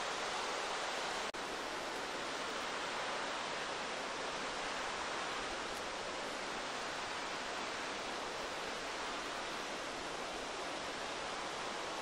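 Steady rushing and babbling of a shallow mountain river flowing over rocks, with a momentary break in the sound about a second in.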